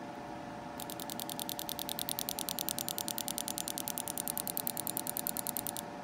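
New race fuel injector clicking open and shut on a pulse tester, a fast, even train of light clicks at about ten a second. It starts about a second in and stops near the end. The clicking is quiet, which the owner puts down to the new injector's tight pintle and strong spring.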